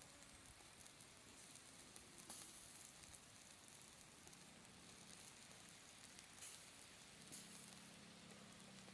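Near silence: faint outdoor background hiss with a few soft scattered crackles and clicks.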